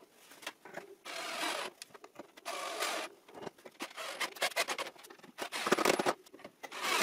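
Cordless drill-driver driving wood screws through the armrest into the chair's front leg, running in several short bursts with clicks and knocks between them.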